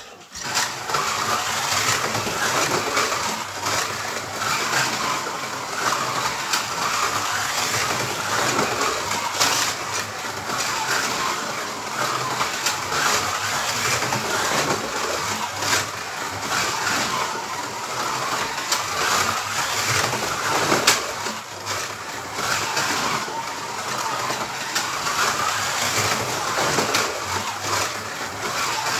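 Scalextric 1:32 slot car lapping the plastic track: its small electric motor whines and its tyres and pickup run noisily over the track, swelling and easing as it speeds up and slows for the corners. It sets off about half a second in.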